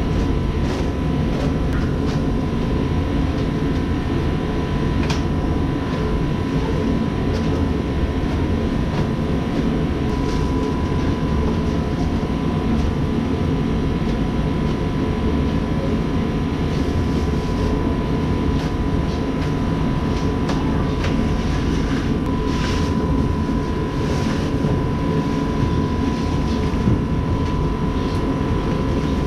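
Blower fan running with a steady rumble and a faint steady whine. Now and then light crackles of plastic wrap being pulled off a bumper.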